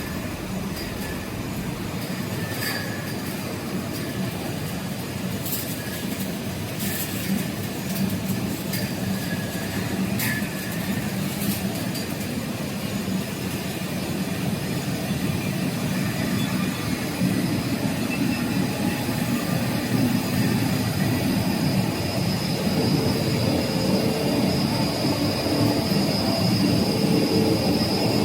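Wire-drawing machine running: a continuous metallic rumble with short squeals and ticks early on. A steady high whine grows stronger over the second half as the level slowly rises.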